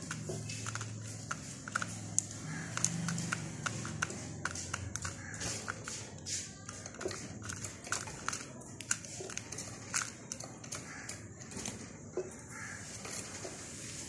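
Small cage birds in an aviary giving many short, irregular chirps and calls, with zebra finches among them. A low hum sits underneath for roughly the first five seconds.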